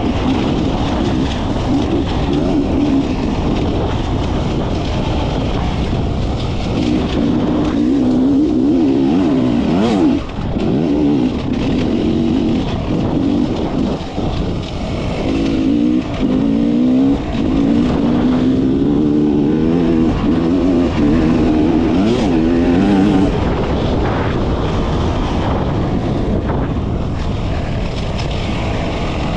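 Beta enduro motorcycle's engine running under changing throttle while riding a dirt track, its note rising and falling, over a steady rough hiss of wind and tyre noise. The engine note drops briefly about ten seconds in, and again a few seconds later.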